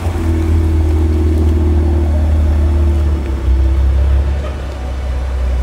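BMW Z4 M40i's B58 turbocharged inline-six idling through its custom-built valved exhaust, a steady low rumble with no revving.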